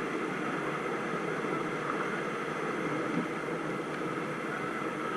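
Steady rushing of river water around a raft, an even noise with no distinct splashes.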